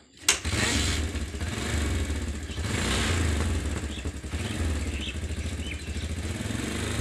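A small engine idling steadily, a low rumble with rapid even pulsing that starts suddenly just after the start.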